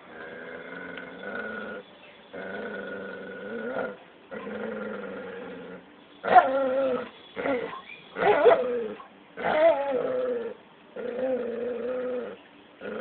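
A dog and a cat growling at each other in a fight: long drawn-out growls of a second or two each, with four shorter, louder cries that bend in pitch in the middle, then another long growl near the end.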